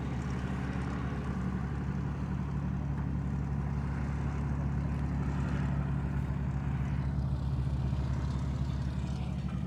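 De Havilland Mosquito's twin Rolls-Royce Merlin engines running at low power as the aircraft taxis, a steady low drone that swells slightly in the middle.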